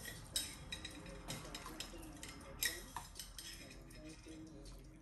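Kitchen utensils and ceramic bowls clinking as noodle soup is served: a scattered run of sharp clinks and taps, loudest about half a second in and again near the middle.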